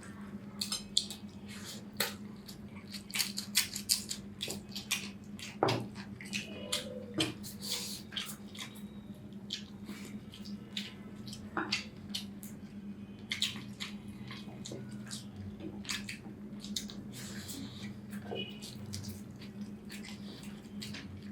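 Eating sounds from chicken curry and rice: irregular wet smacks, clicks and chewing, with a steady low hum underneath.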